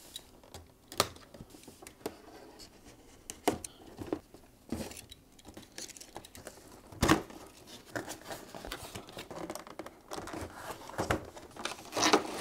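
A toy's cardboard box and its packaging being opened by hand: scattered clicks and taps, with crinkling and rustling that grow busier near the end. A sharp knock about seven seconds in is the loudest sound.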